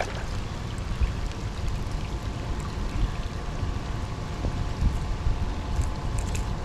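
Water splashing and trickling around a large hooked fish as it is landed and handled, over a steady low rumble of wind on the microphone.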